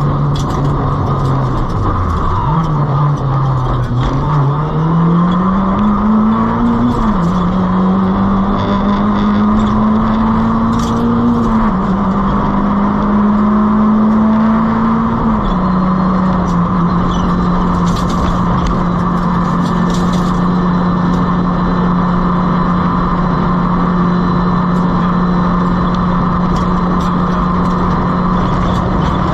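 Nissan Micra K11 1.3's four-cylinder rally engine running under load over steady road noise. Its note dips about two seconds in, then climbs twice, each climb ending in an upshift, about seven and twelve seconds in. It drops once more around halfway and then holds steady.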